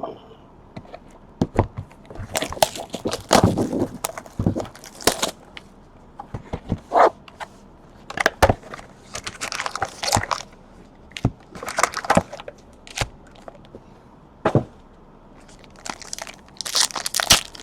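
Baseball card packs being torn open and their wrappers crinkled, with cards handled, in a string of short crackling rips and sharp snaps.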